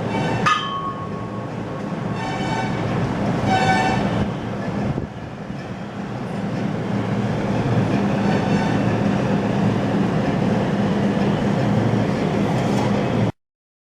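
High-speed CNC wood carving router running steadily, with a continuous mechanical hum and noise and a couple of brief pitched whines. It stops abruptly near the end.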